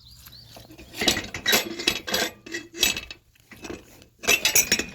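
Metal farm gate being worked open, its latch and fittings rattling and clanking in several bursts, the loudest near the end. The gate is sticking because horses keep leaning on it.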